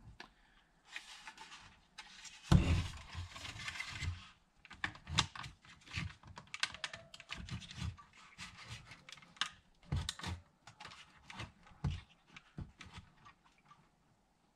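Plastic housing of a TIPM (Totally Integrated Power Module) being worked back together by hand over its pins: irregular plastic clicks, taps and rattles, with a rustling scrape in the first few seconds and a louder knock about two and a half seconds in. The housing is hanging up on one side, which the mechanic fears means a bent pin.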